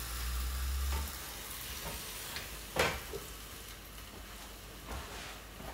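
Cheese-filled potato dumpling dough sizzling in a hot, oil-brushed waffle iron, a steady hiss, with a sharp click about three seconds in.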